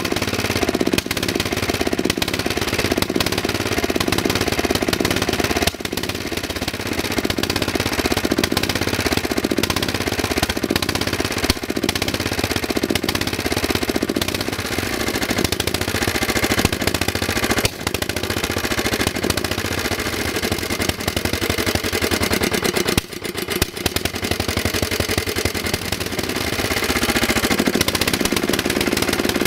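Lombardini LAP 490 single-cylinder petrol engine on a BCS 20000 walk-behind mower, running steadily with a fast, even firing beat.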